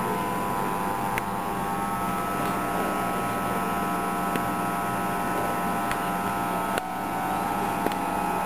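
Steady hum and hiss with several fixed tones, broken by a few faint clicks.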